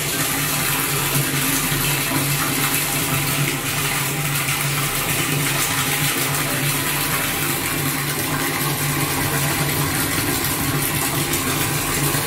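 A stream of water pouring into a nearly empty stainless steel tank, splashing steadily into the shallow water at the bottom, with a steady low hum underneath.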